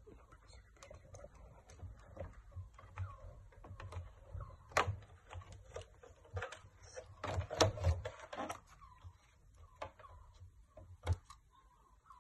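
Scattered clicks and light knocks of hands handling a PS3's disassembled chassis, pulling a cable connector and lifting off the sheet-metal shield plate over the board, with a louder clatter of knocks a little past halfway and one more sharp knock near the end.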